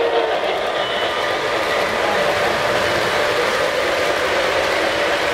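Three-rail O-scale model freight cars rolling past close by on metal track, a steady rolling rattle of their wheels.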